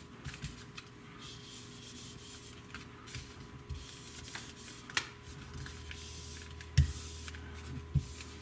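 Small hand-held iron pressed and rubbed over heat-shrink wrap to tack it down onto a coil core: faint rustling and scraping, with a sharp click about five seconds in and two low thumps near the end, over a faint steady hum.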